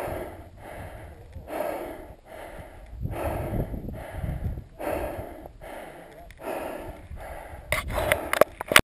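A runner panting hard and rhythmically, about one and a half breaths a second, out of breath from a steep rocky climb. Near the end, a few sharp clicks and knocks, then the sound briefly cuts out.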